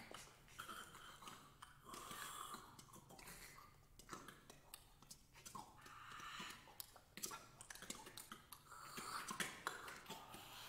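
Soft, unpitched vocal sounds from a six-voice ensemble: breathy hisses and exhalations that swell and fade, scattered with short clicks. This is an extended-technique passage of a contemporary vocal piece rather than sung notes.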